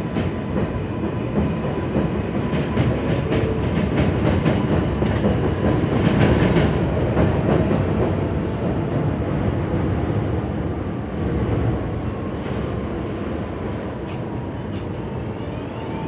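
New York City subway train running through an elevated station, its steel wheels clicking over rail joints over a heavy rumble. It is loudest about six seconds in, then eases off, with a faint rising motor whine near the end.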